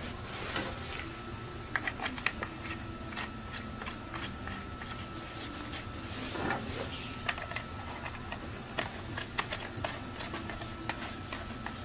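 Irregular light plastic clicks and taps from hands handling DJI FPV Goggles V2 and screwing its antennas on, with a couple of soft rustles.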